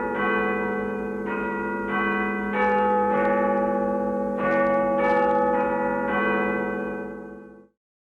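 Church bells pealing, a new strike roughly every half second at changing pitches, each ringing on under the next. The ringing fades and cuts off near the end.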